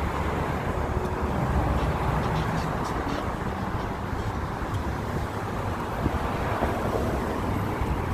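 City street traffic: a steady rumble of passing cars, engines and tyres.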